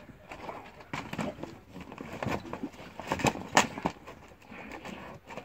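Two dogs tugging at and shaking a fox's body: irregular scuffling and knocks, the sharpest about three and a half seconds in.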